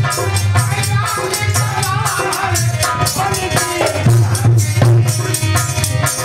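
Live devotional bhajan music with a steady beat of shaker-like percussion and drum over a pulsing bass line.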